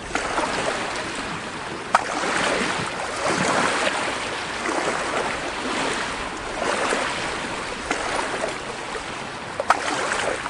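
Water washing in repeated surges about every second and a half, like waves against a boat, with two short sharp clicks.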